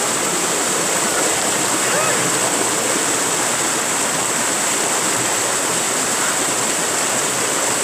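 Water pouring steadily over boulders in a small waterfall of a rocky mountain stream.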